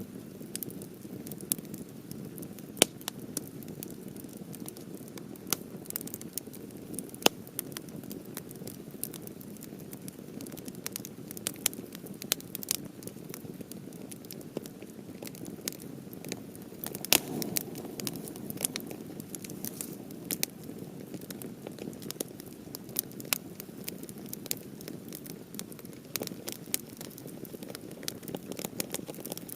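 Campfire of half-dried cedar wood burning: a steady low rush of flame under frequent, irregular sharp pops and crackles, a few of them much louder than the rest.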